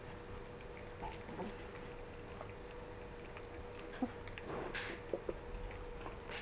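Rough collie puppies eating minced raw meat from a steel bowl: faint wet chewing and lapping with small clicks, and a few slightly louder knocks and a short rustle past the middle. A faint steady hum runs underneath.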